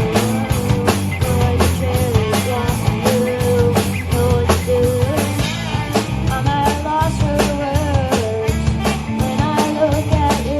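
Rock music with a drum kit playing a fast steady beat under a wavering melody line.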